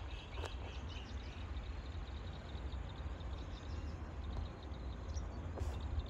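Small birds chirping over a steady low rumble of outdoor background noise.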